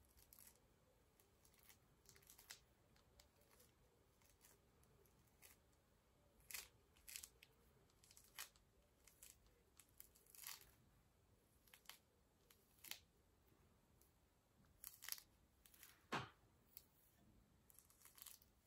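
Fingers tearing the peel off a small orange: faint, crisp little tearing snaps at irregular intervals, roughly one every second, with one fuller snap and a low thud late on.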